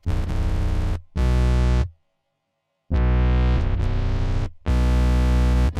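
Background electronic music: heavy synthesizer chords in short blocks of about a second, with a brief full stop a couple of seconds in.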